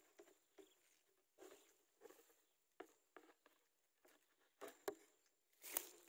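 Faint, irregular rustling and light crackling of dry grass and nest material: short soft crackles every half second or so, with the loudest near the end.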